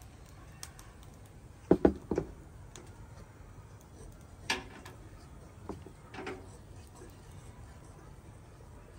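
Several sharp knocks and clinks. The loudest two come close together about two seconds in, and single, quieter ones follow near the middle, over a faint steady background.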